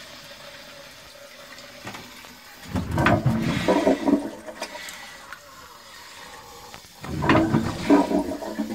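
Water from a Victorian Shanks 'Reliable' cast iron cistern flushing into a WC pan, with two louder surges about three and seven seconds in. The cistern, long disused, is flushing out rusty debris as its water begins to run clear, in a sluggish flush through a short flush pipe.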